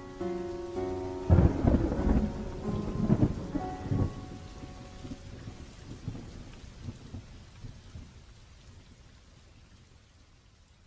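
The last plucked notes of background music, then about a second in a loud rumbling crackle with a rain-like hiss, peaking several times over a few seconds before dying away slowly to near silence.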